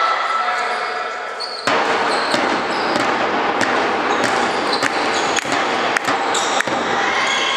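Handball play on a wooden sports-hall court: a ball bouncing and thudding, with short shoe squeaks on the floor, over echoing hall noise. The background din jumps up suddenly about two seconds in.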